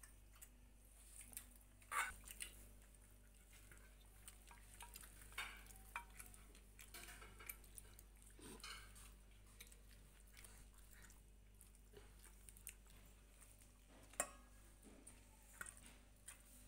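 Near silence: quiet room tone with a low hum, broken by scattered soft clicks and taps, the sharpest about two seconds in and again near fourteen seconds.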